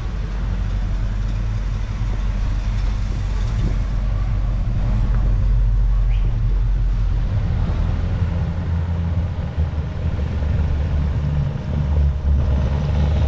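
Car engine running at low revs close by: a steady deep rumble whose pitch shifts about halfway through and again near the end.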